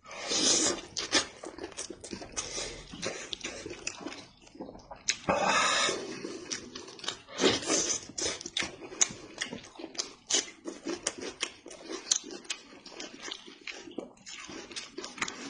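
Close-miked eating of a cooked sheep's head: wet chewing and smacking clicks throughout, with longer noisy sucking sounds about half a second, five and a half and seven and a half seconds in.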